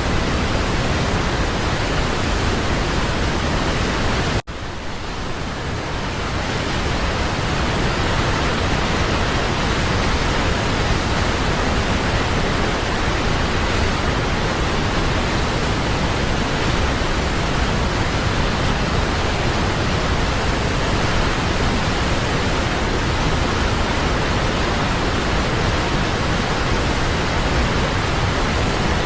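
Waterfall rushing as a steady, even roar of falling water. About four seconds in it cuts out for an instant and then fades back up over a couple of seconds, like a splice in the recording.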